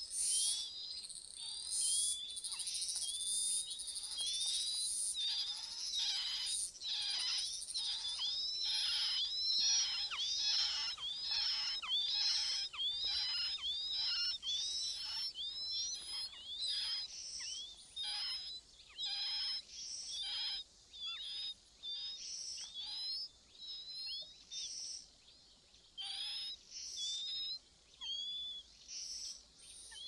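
Chinese hwamei nestlings begging at the nest: a quick, steady series of short, high, hooked chirps, roughly two a second, with raspy bits under them, thinning out and getting softer after about 20 seconds.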